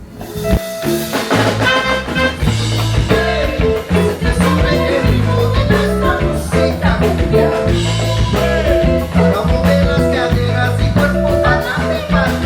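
Upbeat Afro-Latin funk band music with drum kit and bass, coming in suddenly at full level.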